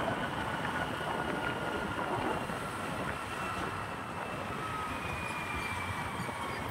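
Steady road noise from travelling along a busy road: a dense, even rush with faint high whines drifting slightly in pitch.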